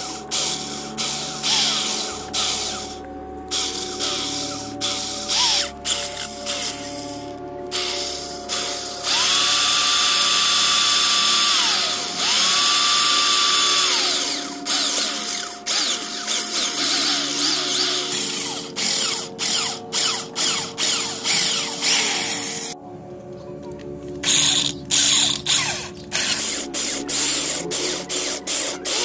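Corded electric drill boring holes through a thin steel saw-blade knife blank, the bit grinding and chattering in short uneven bursts. Twice around the middle the drill's whine rises to a steady high pitch for about two seconds, then falls away.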